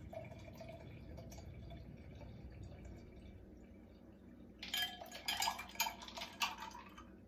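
Punch poured from a pitcher into a glass: a soft trickle of liquid, then ice cubes clinking and clattering against the glass in a quick run of knocks for the last few seconds.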